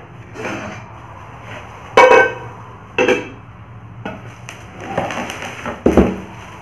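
Non-stick cookware pots and lids clanking as they are handled and set down. The loudest is a ringing clank about two seconds in, followed by another a second later and a dull thump near the end. Plastic wrapping rustles between the knocks.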